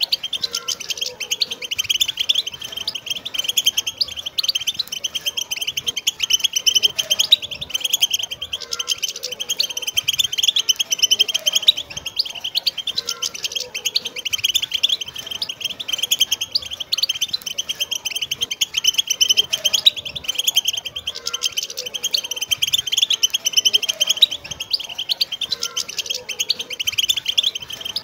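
A flock of wild European goldfinches calling and twittering together: a dense, unbroken stream of rapid, high chirps.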